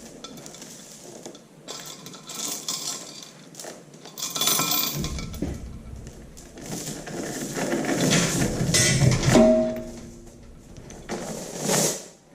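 Chain fall hoist being worked by hand: its chain clinks and rattles in irregular runs, with knocks and handling noise, and a short squeak near the end.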